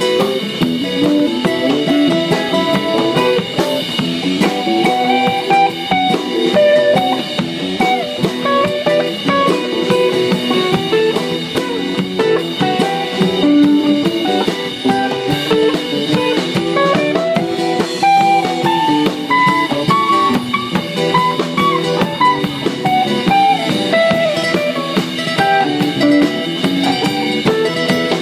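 Live band playing: an amplified acoustic guitar and electric guitar picking melody lines over bass guitar and a drum kit keeping a steady beat.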